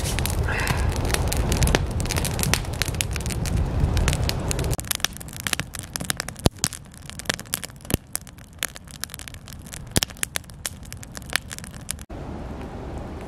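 Wood campfire of dry sticks and branches crackling, with many sharp irregular snaps and pops. For the first few seconds a steady low rushing noise covers it. Near the end it gives way to a steadier, quieter hiss.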